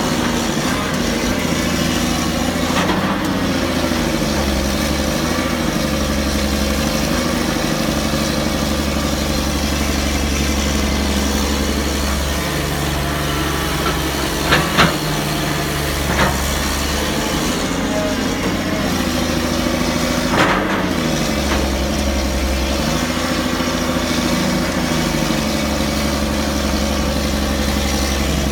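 Excavator's diesel engine running while digging, its pitch dipping and recovering again and again as the hydraulics take load on the arm and bucket. A few sharp clanks come through: two close together about halfway in, one more shortly after, and another about two-thirds of the way in.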